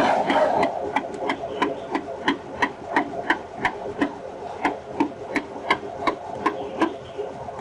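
A hand ratchet wrench clicking steadily on a bolt at the front of an engine block, about three sharp clicks a second.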